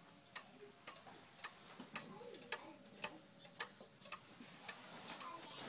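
Pendulum clock ticking steadily, about two even ticks a second.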